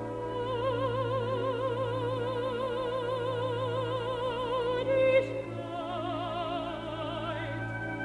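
Mezzo-soprano singing a long held note with a wide, even vibrato over a low sustained orchestral note, then, after a brief swell about five seconds in, moving up to a second held note.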